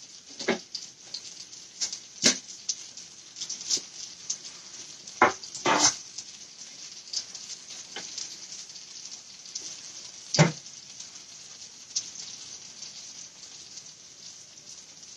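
Hot oil sizzling steadily in a frying pan, with a few sharp clinks and knocks of utensils and dishes, the loudest about six and ten seconds in.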